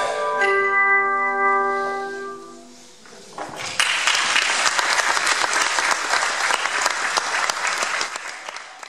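The final chord of hand-held metal tone bars, struck with mallets, rings out and dies away over about two and a half seconds. After a short pause, about three and a half seconds in, the audience breaks into applause, which fades near the end.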